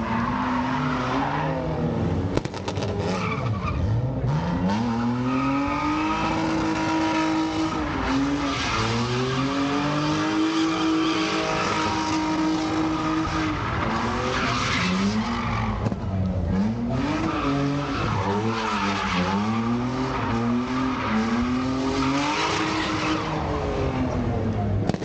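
A car drifting: its engine revs up and falls back in repeated sweeps, held high for a few seconds midway, over the hiss and squeal of tyres sliding sideways.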